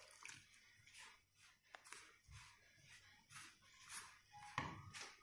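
Near silence, with faint soft rustles of a hand mixing jaggery syrup into flour in a steel pot.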